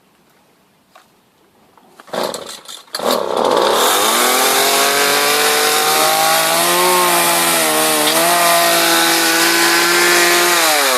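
Gasoline chainsaw starting: a couple of short rattles about two seconds in, then the engine catches about three seconds in. It revs up and runs steadily at high speed, with a brief waver in pitch midway, and starts to drop in pitch right at the end.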